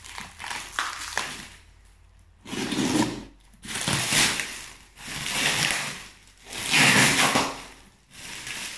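Scissors cutting through plastic wrapping film and tape on a cardboard parcel: a few clicks, then about five crinkling, tearing pulls of roughly a second each.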